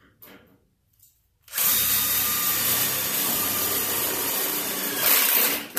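Cordless drill running steadily for about four seconds, driving a self-tapping screw into the new sheet-metal rocker panel, briefly louder just before it stops. It starts about a second and a half in, after a few faint handling clicks.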